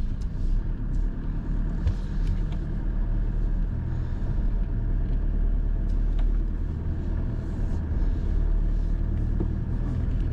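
A 4x4's engine and drivetrain running steadily in low-range gearing, heard from inside the cab as a continuous low rumble, with a few faint knocks and rattles.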